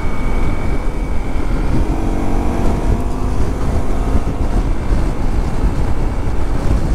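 A Honda CRF Rally dual-sport motorcycle's single-cylinder engine running steadily while riding, mixed with a heavy rumble of wind over the helmet microphone.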